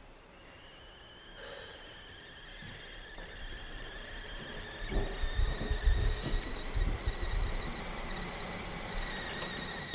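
Stovetop kettle whistling, a steady shrill tone with several overtones that starts faintly and grows steadily louder, with a low rumble underneath from about halfway. It cuts off suddenly at the end.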